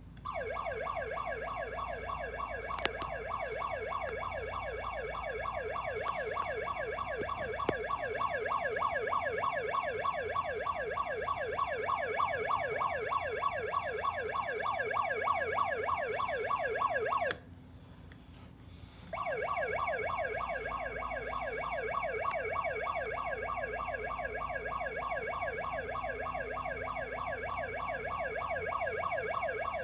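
Emergency Alert System–style alarm: a siren-like tone sweeping rapidly up and down in pitch several times a second. About 17 seconds in it stops for roughly two seconds, then starts again.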